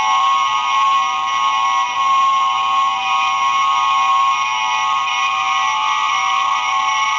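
Star Trek transporter ornament's small speaker playing its transporter beam sound effect: a loud, steady cluster of high electronic tones that starts abruptly.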